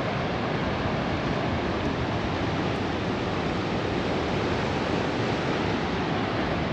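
Steady rushing of ocean surf and wind, with wind buffeting the microphone.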